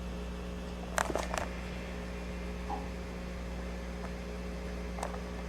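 Steady low electrical hum and hiss picked up by an old Hi8 camcorder's built-in microphone, with a quick cluster of clicks from handling the camcorder about a second in and a single click near the end.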